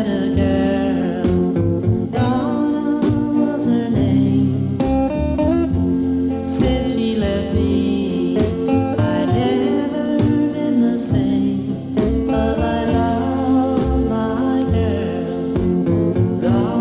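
Music: a song with a singing voice over instruments and a steady beat.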